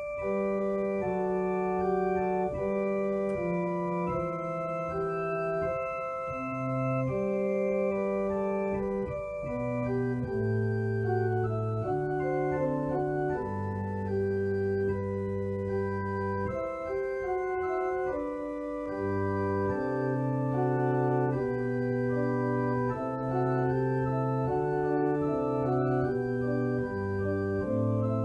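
Organ playing a slow voluntary in held chords over a moving bass line, the notes changing every second or two.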